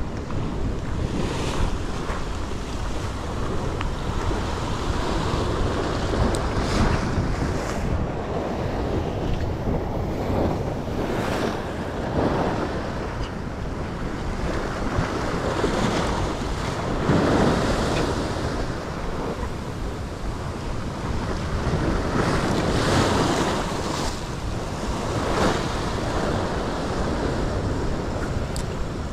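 Ocean swell surging and breaking against a rock ledge, the wash swelling and falling every few seconds, with wind buffeting the microphone.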